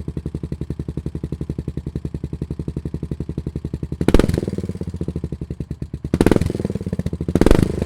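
Motorcycle engine idling with an even, pulsing beat. The throttle is blipped about four seconds in and twice more near the end, the engine revving up briefly each time.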